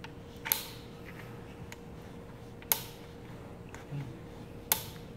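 Three sharp clicks about two seconds apart as coolant-line quick-connect couplings are pushed onto a spot welder's clamp, over a faint steady hum.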